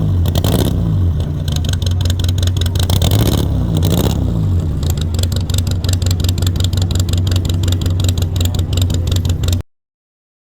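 Bugatti Type 37's four-cylinder engine running with a rapid, even exhaust beat, blipped up twice (about half a second in and about four seconds in) and then held at a steady fast idle. The sound cuts off abruptly near the end.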